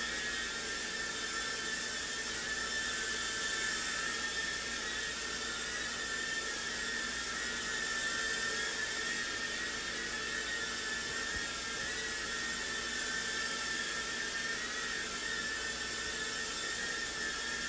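JJRC H56 TaiChi mini quadcopter's small motors and propellers whining steadily as it hovers and flies, the pitch wavering slightly as the motors adjust.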